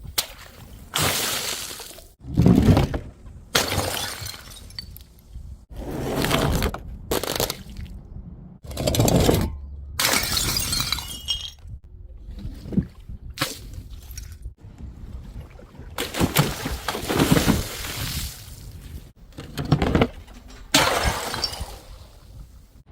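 Glass bottles smashing one after another, a run of separate shattering crashes with tinkling shards, several cut off abruptly between clips.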